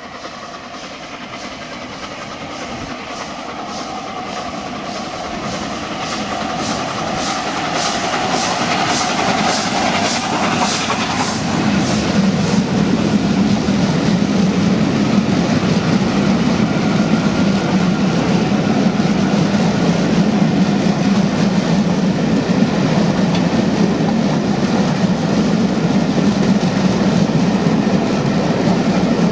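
LNER A4 steam locomotive 60009 Union of South Africa approaching and passing at speed, growing louder with a quick run of regular beats, then its train of coaches rolling past with steady wheel-on-rail rumble and clickety-clack.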